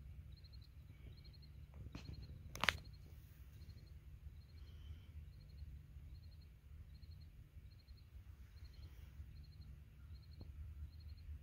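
Outdoor ambience: an insect chirping steadily, each chirp a short trill of pulses repeating a little more than once a second, over a low wind rumble on the microphone. A sharp click about two and a half seconds in.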